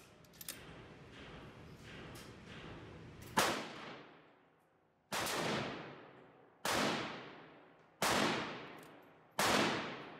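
Rifle shots, each followed by about a second of ringing echo. One comes about three seconds in, then four more at even intervals about a second and a half apart.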